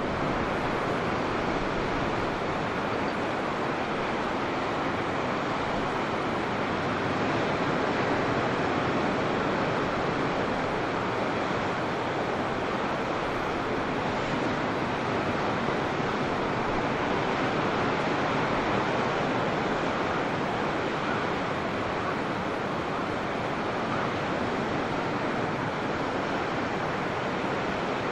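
Ocean surf breaking and washing on the shore, a continuous rushing with a slight swell in the middle.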